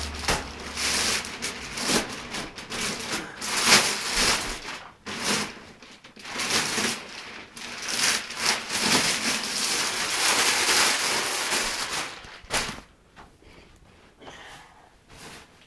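Plastic wrapping being crinkled and pulled off a computer case, a loud irregular rustling that stops about twelve seconds in, leaving only a few faint handling clicks.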